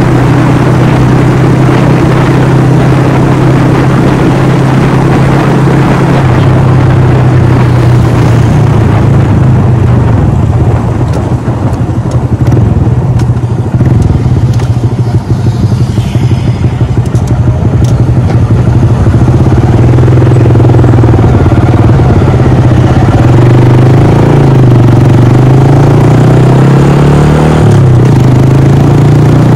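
Honda Monkey 125's air-cooled single-cylinder four-stroke engine running steadily under way. Its sound drops and roughens for a few seconds midway, then wavers up and down in pitch near the end.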